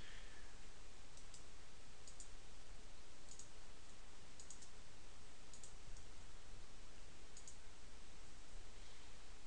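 Computer mouse clicking a few times, some clicks in quick pairs, over a steady background hiss.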